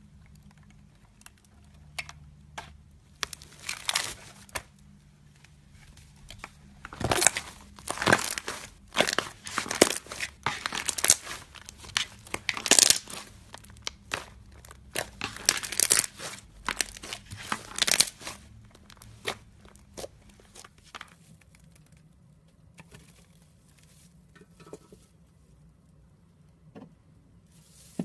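Hands squeezing and stretching slime, giving a run of irregular crackling, popping and squelching noises. They are busiest in the middle and thin out to a few scattered pops near the end.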